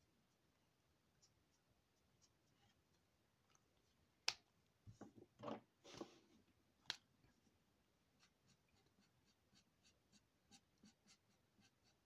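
Mostly quiet. A sharp plastic click about four seconds in and another near seven seconds, with rustling between, as Twinmarker alcohol markers are capped, swapped and uncapped. After that come faint light ticks, two or three a second, of the marker tip dabbing on paper.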